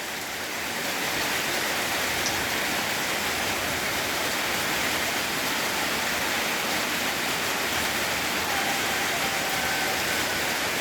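Steady rain falling, an even hiss of rainfall that has kept up all night and shows no sign of stopping.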